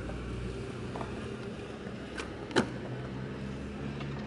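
Skateboard wheels rolling on concrete, then a light clack followed by a much louder sharp clack of the board on the pavement about two and a half seconds in.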